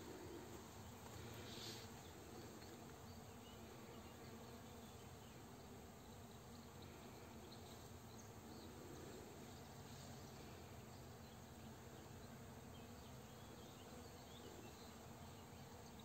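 Faint, steady buzzing of honeybees foraging in flowering oilseed rape, with one brief high chirp about two seconds in.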